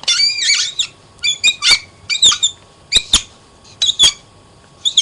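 A series of short, high-pitched chirps and squeaks from a small animal, about ten calls in quick succession.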